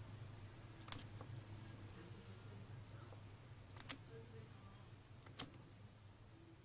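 Three short, sharp clicks or taps, the second one loudest, over a faint low hum.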